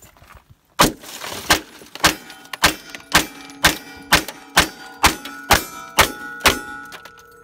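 A pistol fired rapidly from inside a car's cabin: about a dozen shots, roughly two a second, starting about a second in. A steady tone hangs on after the last shot.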